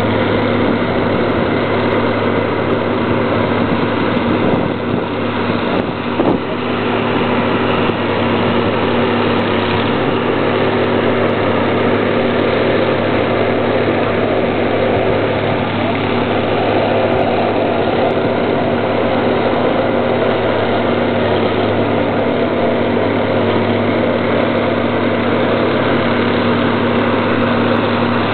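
Heavy diesel engine of road-construction machinery running steadily at a constant speed, with a brief knock about six seconds in.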